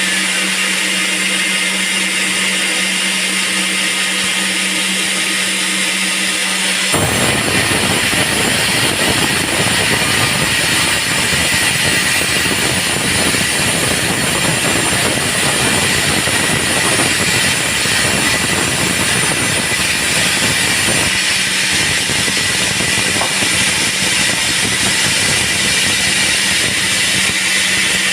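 Band sawmill running with a steady hum. About seven seconds in, a dense, louder noise sets in and carries on: the blade cutting through a teak log.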